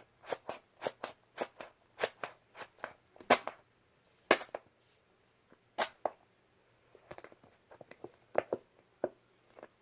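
Slime being kneaded and stretched by hand, giving off sharp popping clicks as air pockets burst, about two a second at first, then a few scattered louder pops and fainter clicks towards the end.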